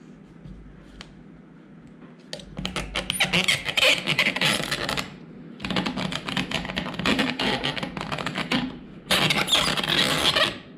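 Jaws-style camera clamp being forced back and forth along the edge of a tabletop, its jaws scraping and chattering against the surface. Three spells of rapid clicking and scraping, each two to three seconds long, begin about two seconds in.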